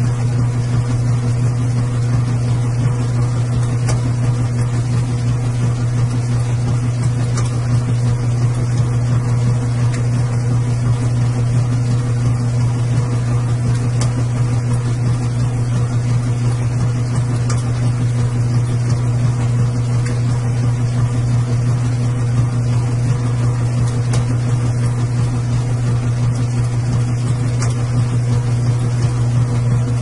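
Washing machine running with a steady low motor hum, and faint light ticks every few seconds.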